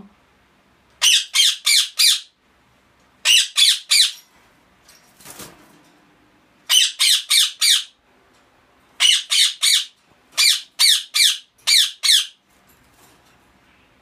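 Indian ringneck parakeet screeching: six quick runs of three to five harsh, high-pitched calls, separated by short pauses.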